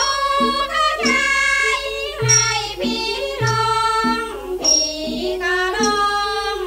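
Thai classical piphat ensemble music playing from an old LP record, with a high stroke keeping time about once a second and low drum strokes.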